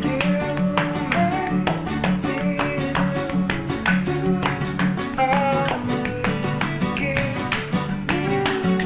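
Background music: acoustic guitar strummed in a quick, even rhythm, with a plucked melody over steady low notes, in a Latin, flamenco-like style.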